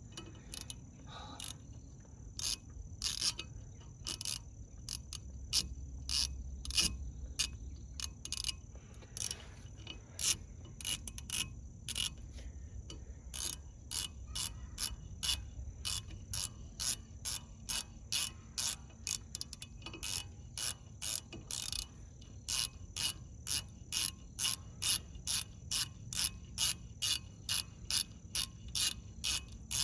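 Hand ratchet clicking as it is worked back and forth on a fastener: sharp clicks, uneven at first, then settling into a steady rhythm of about two a second.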